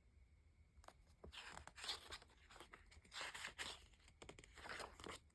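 Faint rustling and scraping of paper book pages being handled and turned, in several short soft bursts.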